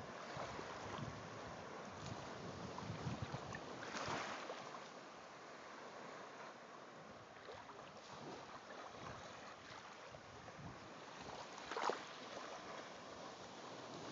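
Wind blowing across a phone microphone, with small waves washing gently on the sand; the wash swells louder briefly about four seconds in and again near the end.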